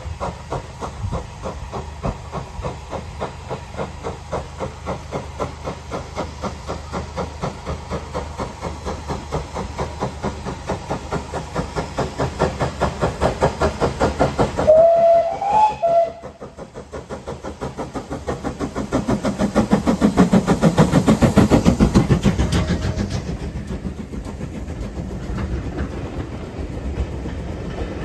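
Steam locomotive approaching on the adjacent track, working with rapid, even exhaust chuffs. A steam whistle sounds briefly about halfway through. The engine then passes close by, loudest as it goes, followed by its coaches rolling past with wheel clatter.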